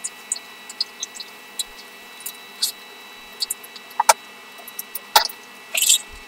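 Eating sounds of a person chewing grilled seafood: scattered small wet clicks and smacks, with a few sharper knocks of tableware and a faint steady high whine underneath.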